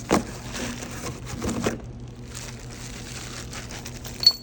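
Plastic packaging crinkling and rustling as small kit parts are handled, with louder bursts early and about one and a half seconds in, and a short sharp click near the end.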